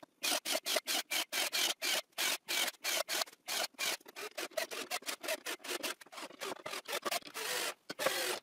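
Fast, evenly spaced rasping strokes, about four to five a second, that crowd together and run into a longer, steadier rasp near the end.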